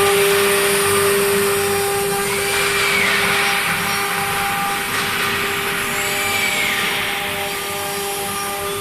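CNC router's 5.5 kW water-cooled spindle running with a steady whine over a broad hiss.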